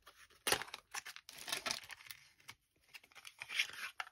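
Packaging crinkling and tearing as a gel nail polish bottle is unpacked by hand, in a few irregular rustling bursts.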